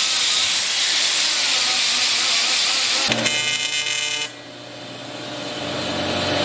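A die grinder running against an aluminium radiator stay, a loud even hiss. A little after three seconds it gives way to the steady electric buzz of an AC TIG welding arc on aluminium, which drops in level about a second later and then slowly grows louder.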